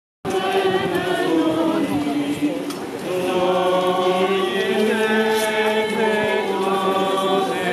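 A group of people singing a hymn together, with long held notes, as a religious procession.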